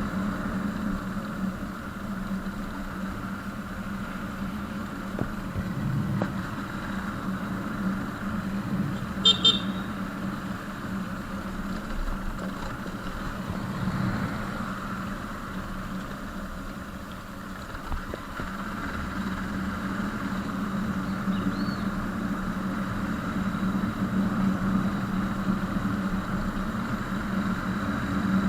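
Motorcycle engine running steadily while riding, a continuous drone. About nine seconds in, two short high beeps sound in quick succession.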